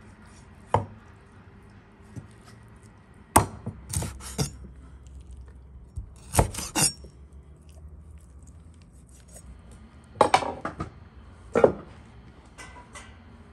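A large chef's knife chops through raw chicken joints onto a wooden cutting board: about eight sharp knocks of the blade striking the board, spaced a few seconds apart, some in quick pairs or threes.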